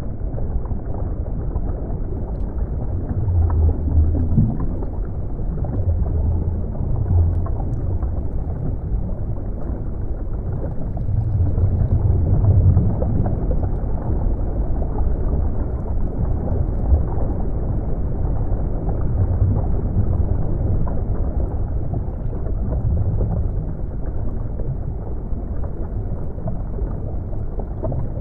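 Underwater ambience: a continuous muffled, low rumble of water, swelling louder now and then, with a few faint ticks.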